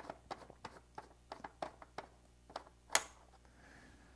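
Forend cap of a Fabarm XLR5 semi-automatic shotgun being unscrewed by hand: a run of faint, irregular light clicks, then one sharper click about three seconds in.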